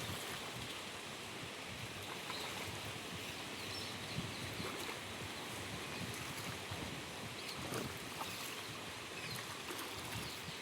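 Steady outdoor background noise at a riverbank, an even hiss with faint scattered clicks and a few thin high chirps.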